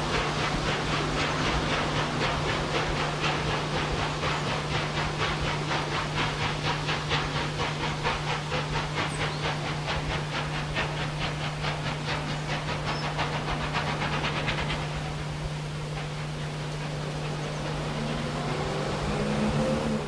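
Steam locomotive working hard under load, its exhaust beats coming in a fast, even rhythm. The beats fade out about fifteen seconds in, leaving a steady hiss.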